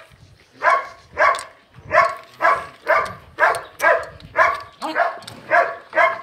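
A dog barking over and over at an even pace, about two barks a second.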